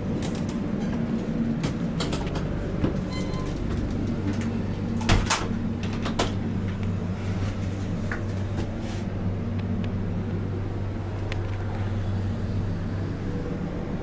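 Steady low hum and rumble inside a running LHB air-conditioned train coach, the drone of its air-conditioning and exhaust ventilation mixed with the coach's running noise. Scattered clicks and rattles come through it, with a louder knock about five seconds in.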